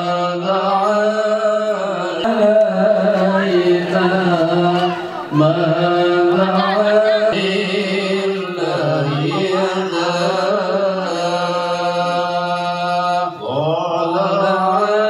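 Music with a chanting voice singing long, held notes over a steady low note. The phrases break off every two to three seconds.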